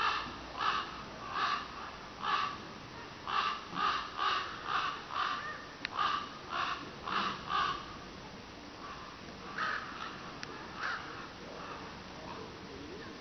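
A bird calling over and over, about two short calls a second for the first eight seconds, then two more spaced calls later.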